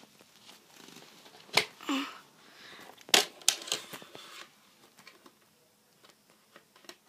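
Hands handling a plastic radio-controlled model speedboat: a few sharp clicks and knocks, the loudest about a second and a half in and again around three seconds in, over faint rustling.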